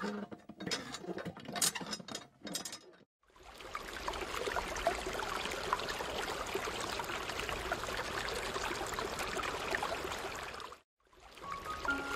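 Miniature model hand pump's lever worked up and down, giving a run of quick clicks and creaks for about three seconds. After a sudden cut, a steady stream of water pours from the pump's small hose into a plastic pool, ending abruptly. Music starts near the end.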